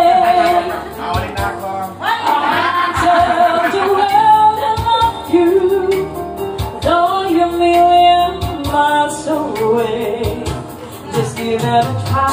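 A woman singing karaoke into a microphone, her amplified voice holding and sliding between notes over a backing track with a steady beat.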